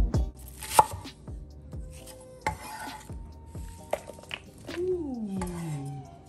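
Chef's knife working on a wooden cutting board: a few sharp knocks of the blade on the board as an onion is sliced, and scratchy stretches of the blade scraping the sliced onion across the board to scoop it up.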